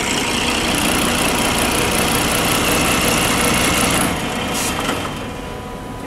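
Semi-automatic safety-buckle assembly machine running, a steady mechanical whir and hiss with a faint high whine. It eases off about four to five seconds in.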